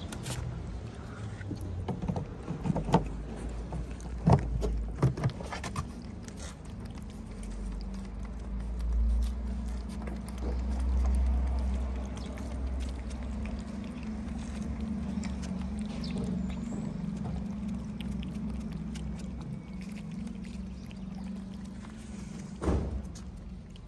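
Two cats eating wet cat food from foam trays close up, with soft chewing and smacking clicks throughout. There are a few louder knocks in the first several seconds, and a steady low rumble underneath.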